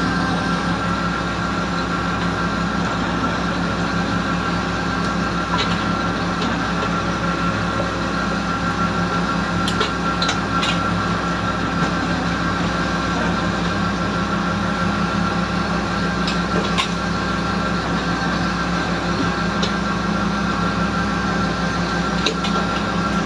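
Fishing boat's engine and deck machinery running steadily, a constant mechanical drone with a few sharp knocks, twice in quick succession about ten seconds in and once more a few seconds later.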